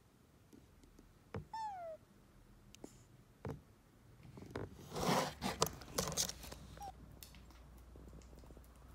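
A kitten gives one short meow that falls in pitch, and later a shorter, fainter one. In the middle comes a louder burst of rustling with a run of clicks, the loudest sound here.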